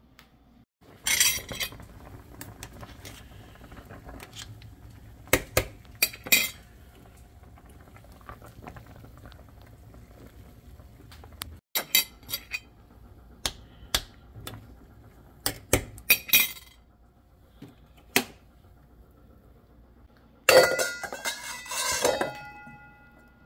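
A utensil clinking and knocking against a dish, in scattered sharp strikes. Near the end comes a longer clatter with the dish ringing.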